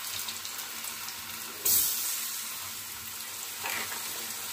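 Cubed potatoes deep-frying in hot oil in a kadai, a steady sizzle that flares suddenly louder about one and a half seconds in and then eases back.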